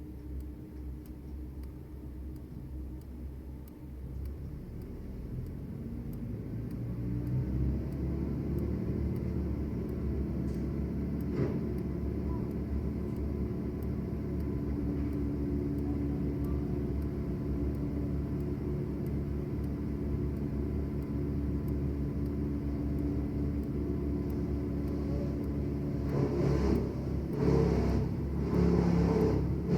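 An engine running steadily at low pitch, growing louder over a few seconds about five seconds in, then holding, with some uneven surges near the end.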